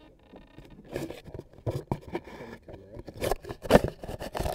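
Hands rubbing, scraping and knocking on a model plane and its onboard camera, right up against the camera's own microphone: a run of irregular rustles and knocks, the loudest about three and a half seconds in.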